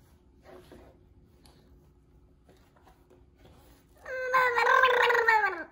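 A baby's long, high-pitched vocal "aah" starts about four seconds in, is held for about a second and a half and falls in pitch as it ends. Before it there are only faint rustles.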